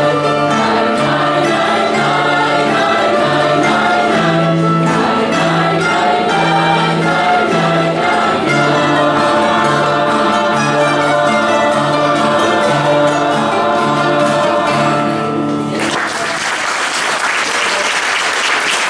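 Mixed youth choir singing a song with guitar and keyboard accompaniment, over a steady pulsing bass line. About 16 seconds in the song ends and the audience applauds.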